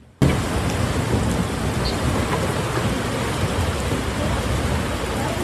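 Heavy rain and rushing floodwater from a flash flood: a steady, loud, even rush of water noise that cuts in abruptly just after the start.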